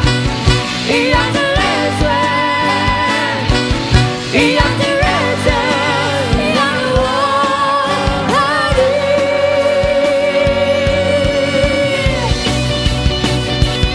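Pop song with a steady beat and a sung melody line; one long note is held from about nine seconds in and breaks off about twelve seconds in.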